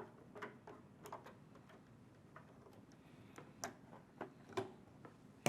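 Faint, irregular small metallic clicks and ticks of a screwdriver working the terminal screws on a water heater's upper thermostat, with a few louder clicks in the second half.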